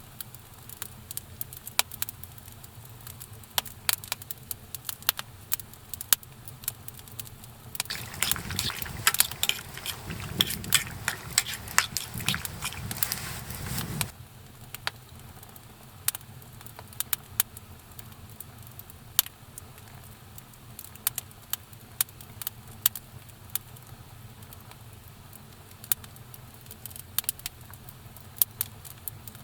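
Sandwich frying on a grill or in a pan: scattered crackles and pops, with a louder, denser stretch of sizzling and handling noise from about eight seconds in until about fourteen seconds in.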